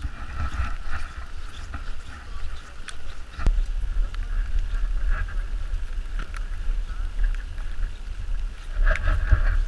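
Wind rumbling on the microphone, with faint indistinct background sounds and a few small clicks. A click about three and a half seconds in is followed by a stronger rumble.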